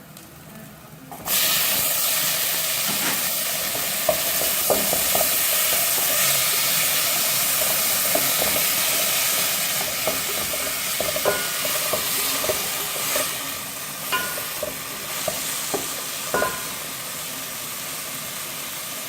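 Food sizzling loudly in hot oil in a frying pan, with the scrapes and clicks of a spoon stirring it; the sizzle starts abruptly about a second in.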